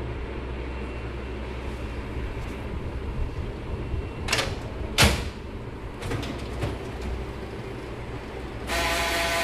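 Ricoh IM C2000 colour copier running with a steady low rumble and grinding, broken by two sharp knocks about four and five seconds in and a few lighter clicks after them. This abnormal noise is traced to a jammed black development unit. Near the end the sound gives way to a brighter, steady hiss.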